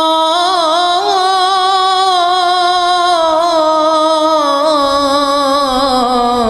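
A young man's voice sings one long, ornamented, wavering held line in the sung style of a zakir's elegiac majlis recitation. The pitch slides down near the end.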